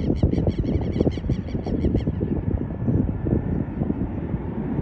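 Gusty wind on the microphone over a low rumble from a Boeing 737-800 on final approach in the distance. A bird calls rapidly, about seven short calls a second, and stops about two seconds in.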